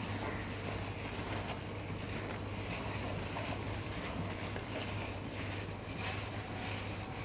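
Gloved hands squishing and kneading chicken wings in a wet coating of flour, cornflour and egg in a glass bowl, with the rustle of thin plastic gloves, over a steady low hum.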